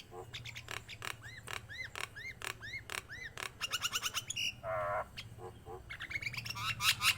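Nias hill myna calling: sharp clicks and a run of short rising-and-falling whistles, about three a second, then a harsher, lower call near the middle and quick clicks near the end, over a low steady hum.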